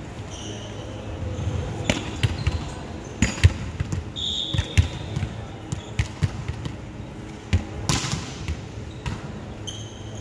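Volleyball game sounds in a large sports hall with a wooden floor: irregular ball thuds and knocks echo through the hall, with a few brief high squeaks. A sharper hit comes near the end.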